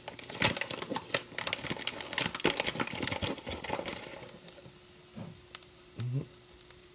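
Paper bag of granulated sugar being unrolled and opened: dense crinkling and crackling of stiff paper for about four seconds, then it stops.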